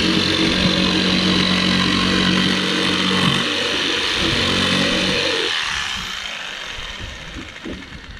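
Corded electric jigsaw cutting a curved profile through a sheet of OSB board: a steady motor whine with the blade chattering through the wood, which stops about five and a half seconds in.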